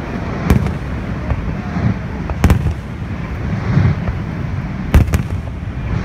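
Fireworks display: aerial shells bursting with sharp bangs about half a second in, again at two and a half seconds, and a close pair near five seconds, over a steady background rumble.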